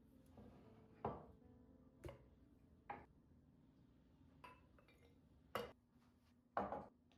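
Kitchenware being handled and set down in a small room: a series of about six short clinks and knocks, a second or so apart, with the loudest near the end.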